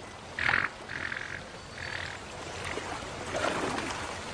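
Three short, scratchy animal calls in quick succession, the first the loudest, over a steady wash of river water, then water splashing near the end as hippos churn the river.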